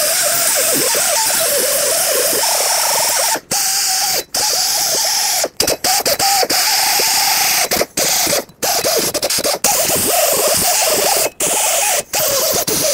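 Right-angle die grinder with a sanding disc grinding surface rust off the steel hub face of a rear axle shaft. It runs loud and steady, its pitch wavering as it is pressed on, and it cuts out briefly several times.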